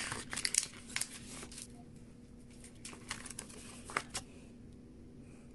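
Paper rustling and soft handling ticks as a folded CD booklet is leafed through and a photo card is slid out past a plastic jewel case. The rustles come in a flurry through the first second and a half and again around three to four seconds in, then settle.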